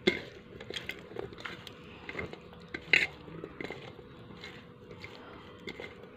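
Scattered light taps and clinks on a steel plate as dragon fruit pieces are handled and moved about, with sharper clinks at the start and about three seconds in.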